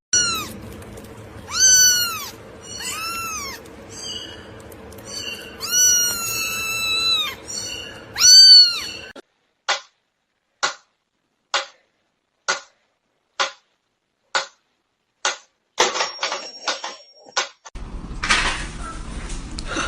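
A cat meowing about five times, each call rising and falling, the last one drawn out. It is followed by a run of sharp clicks about one a second.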